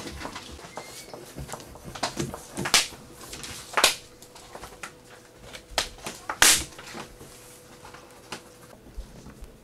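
Pencils scratching and tapping on paper, with three louder, sharp swishes of paper sheets being handled, a few seconds apart.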